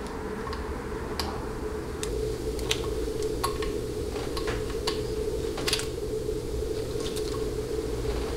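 Irregular small clicks and taps of hands fitting the plug of a 700R4 transmission's internal wiring harness to the case connector and handling the harness. A steady low hum runs underneath.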